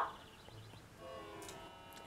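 Faint background music: a soft held keyboard chord comes in about a second in, after a voice cuts off at the start.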